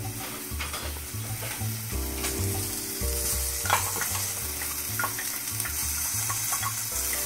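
Chicken frying in olive oil in a skillet loosely covered with aluminum foil: a steady sizzle, with a few light clicks of utensils against a glass bowl.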